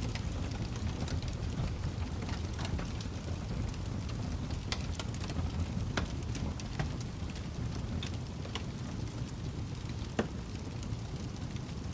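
Wood fire crackling in a fireplace: irregular snaps and pops over a steady low rumble of the flames, with a sharper pop about ten seconds in.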